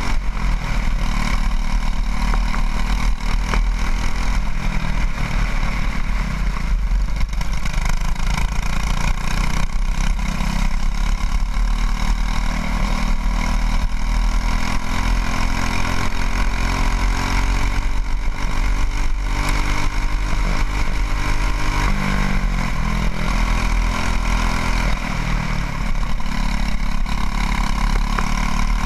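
Racing kart's single-cylinder engine running hard under load, its revs rising and falling through the corners, with a clear drop and climb a little after twenty seconds in.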